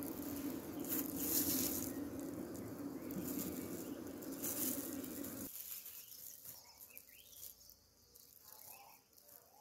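Honeybee colony buzzing steadily at an opened hive, with a couple of louder rustles. About halfway through it cuts off suddenly, leaving quiet with faint chirps.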